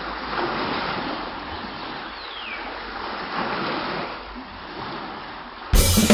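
Ocean surf: waves breaking and washing in, swelling twice, with a short falling whistle about two seconds in.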